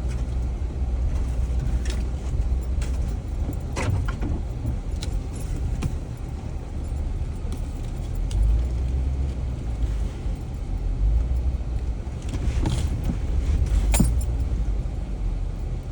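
Jeep engine rumbling low while crawling slowly over a rough off-road trail, the rumble swelling and easing. Scattered rattles and knocks of the vehicle jolting over bumps, with a few sharper ones about 4 seconds in and near the end.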